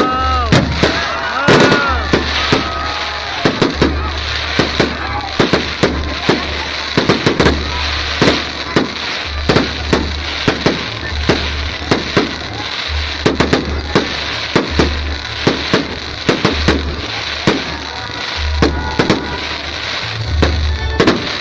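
Aerial fireworks going off in a rapid, continuous barrage of sharp bangs and crackles, with whistling shells gliding in pitch during the first couple of seconds.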